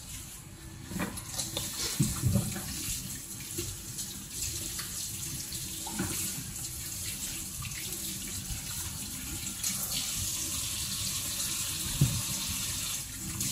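Kitchen tap running into a stainless steel sink as food is rinsed under the stream, with a few short knocks as things are handled.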